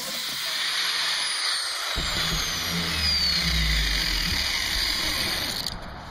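A power sander running against the steel of a freshly forged knife blade, giving a steady hiss, then cutting off abruptly near the end.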